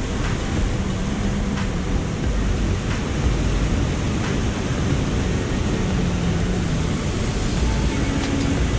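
Steady, dense rush of water pouring over the rocky falls of the Jacaré Pepira river.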